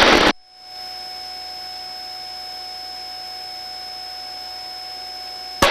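Helicopter crew intercom line with the voice-activated microphones closed: a faint steady hiss carrying two constant electronic tones, one high and one mid-pitched. The loud rush of rotor and wind noise through an open headset microphone cuts off about a third of a second in and comes back right at the end.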